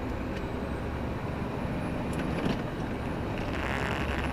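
Articulated lorry's diesel engine running steadily while driving, heard from inside the cab, with a short hiss near the end.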